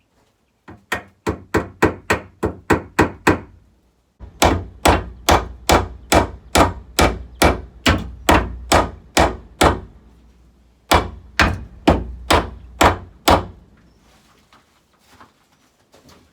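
Hammer driving nails into a wooden roost board: three runs of sharp, evenly spaced blows, about three a second, with short pauses between runs, stopping a few seconds before the end.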